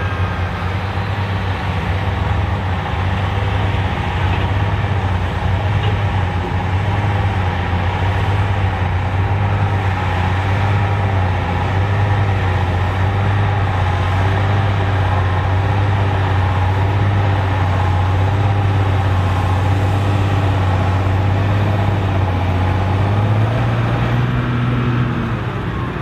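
Large tractor's diesel engine running steadily with a deep hum; near the end its note rises a little.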